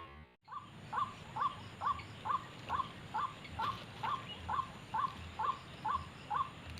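White-breasted waterhen (ruak-ruak) calling: one short harsh note with a quick upward sweep, repeated evenly about twice a second. Music cuts off about half a second in, just before the calls start.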